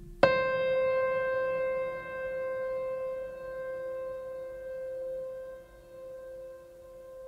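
A single bell-like tone, struck once about a quarter second in, then ringing on and slowly fading with a wavering, pulsing level.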